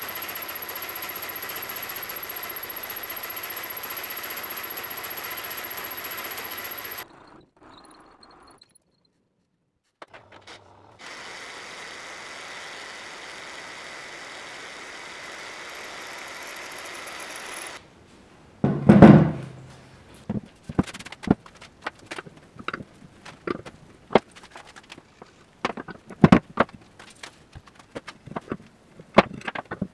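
Milling machine face-milling a steel bar: a steady cutting noise with a high whine, which stops about 7 s in and starts again near 11 s. From about 19 s comes a loud thunk, then a long run of sharp metallic clicks and knocks as steel carriage parts and a hex key are handled on a workbench.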